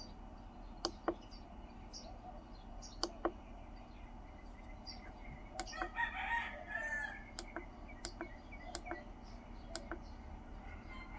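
A rooster crowing once, about six seconds in, among a scattering of sharp clicks and faint bird chirps.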